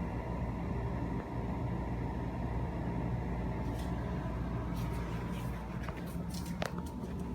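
Panasonic window-type air conditioner running on high: a steady low hum with a faint thin whine over it. A few light clicks and rustles come in the second half.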